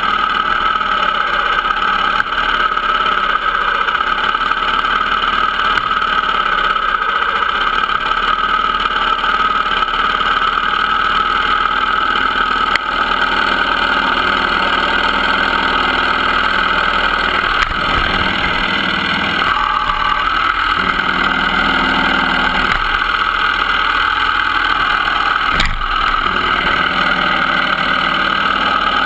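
Dirt bike engine running steadily while riding a trail, close to the camera. Its note shifts for a few seconds about twenty seconds in, and a single sharp knock comes a few seconds later.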